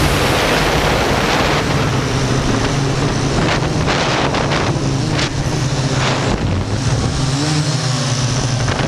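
Syma X8C quadcopter's motors and propellers whirring steadily in flight, heard up close from the onboard camera and mixed with wind noise on the microphone.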